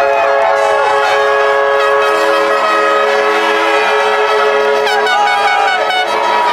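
Several motocross bikes running hard at once: many overlapping steady engine whines, with a few drops in pitch as riders shift or back off, around a second in and again about five seconds in.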